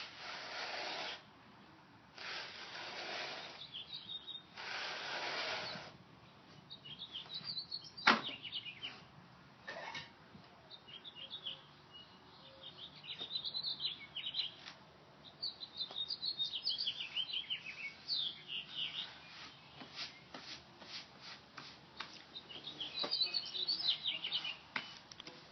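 Three rasping scrapes early on, then a single sharp knock about eight seconds in, followed by small birds chirping repeatedly with scattered light clicks and taps.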